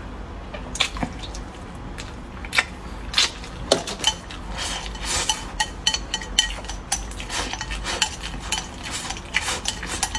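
Wooden chopsticks clicking and scraping against a bowl in many quick, irregular taps as the last grains of rice are gathered up and eaten.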